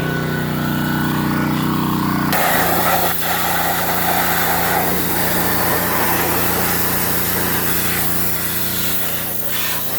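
Pressure washer's small engine running steadily. About two seconds in, the spray starts with a loud, even hiss of high-pressure water that continues over the engine.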